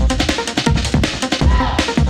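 Background music with a steady drum beat and a deep bass drum.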